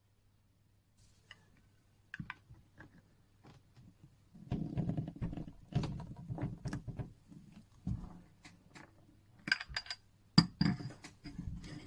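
Small clicks, taps and scrapes of tools and watch parts being handled on a workbench while a new glass crystal is fitted to a watch case, with a sharp knock about ten seconds in.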